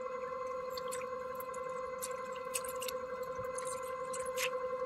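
Small drips and scattered clicks as a fishing line and a small lipless rattle crankbait are reeled in through the water, over a steady hum.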